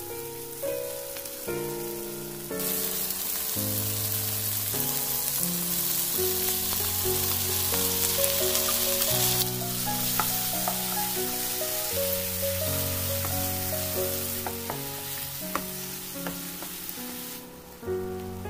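Onion, garlic and ginger sizzling in hot oil in a nonstick wok, with light ticks of a plastic spoon stirring in tomato slices in the second half. The sizzling starts about two and a half seconds in, is loudest in the first half and dies away near the end, over background music with sustained notes.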